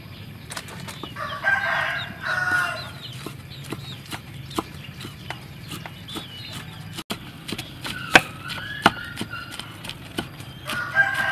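A rooster crows, a little over a second in and again near the end, over knife strokes on a wooden chopping board: a cleaver chopping soft mushrooms, then a knife slicing through an onion with a few sharper knocks on the board.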